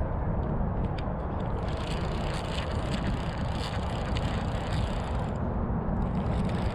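Fishing reel being cranked to bring in a hooked fish, its gears making a run of small rapid ticks over a steady low rumble.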